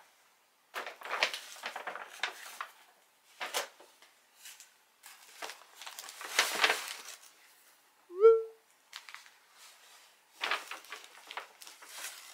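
Kraft paper shopping bag rustling and crinkling in several bursts as it is handled and rummaged through. Just past the middle there is one short, loud squeak that rises slightly.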